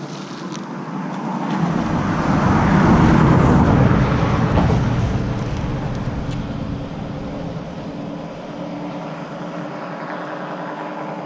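A car driving past, swelling to its loudest about three seconds in and then fading away.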